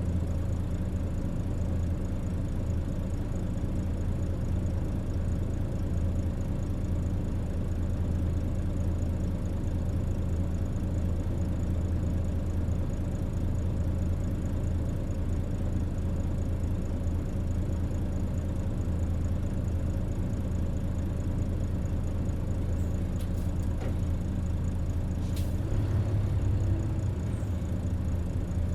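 Mitsubishi Fuso Aerostar P-MP218K bus heard from on board, its diesel engine running steadily with a constant low hum and fixed tones above it; a few light clicks and a slight swell in the hum near the end.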